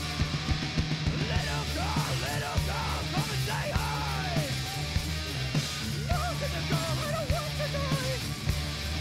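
Background rock song with shouted, sung vocals over a steady beat of drums and bass.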